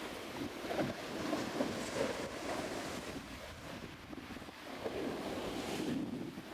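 Surf washing onto a beach, with wind noise on the microphone.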